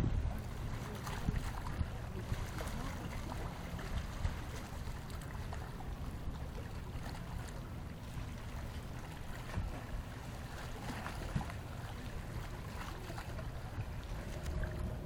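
Wind rumbling on the microphone over lake water lapping at the shore, with scattered faint ticks. About 14 seconds in, a faint steady hum comes in.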